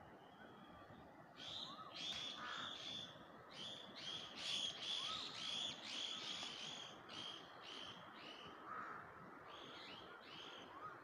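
Fork mashing peeled bananas in a bowl: a run of short scraping strokes of the tines against the bowl, two or three a second, pausing briefly past the middle and resuming near the end. Faint bird chirps sound in the background.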